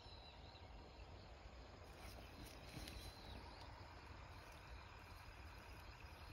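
Near silence: faint outdoor background hiss with faint high insect chirping, clearest about two to three seconds in.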